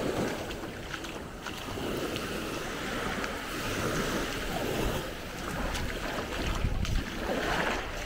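Small waves breaking and washing up a sandy shore, a steady surf wash. Wind rumbles on the microphone, strongest about five to seven seconds in.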